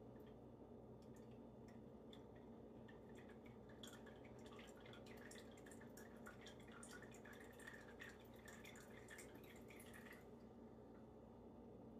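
Faint, irregular drips of sausage grease running off a tilted skillet into a small cup. They come thickest from about four seconds in and stop about ten seconds in.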